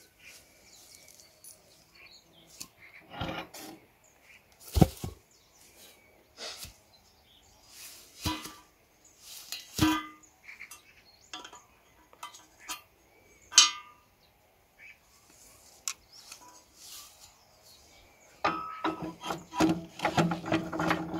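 Steel wheel parts knocking and clinking against the axle of a Salyut 100 walk-behind tractor as a tyred wheel comes off and a steel lug wheel is fitted. Scattered sharp knocks, two of them much louder, then a dense run of ringing metal clatter near the end.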